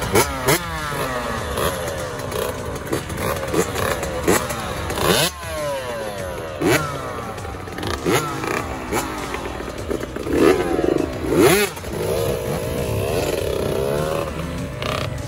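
Small two-stroke dirt bikes, Yamaha YZ65s among them, revving in repeated sharp throttle blips, each a quick rising and falling whine, as the riders pull away; several engines overlap.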